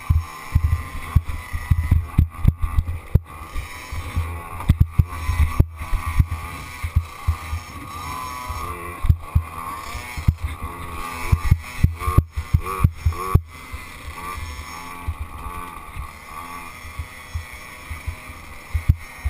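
Small youth dirt bike engine running along a trail, its pitch rising and falling with the throttle, heard from a helmet camera with frequent thumps and low buffeting on the microphone.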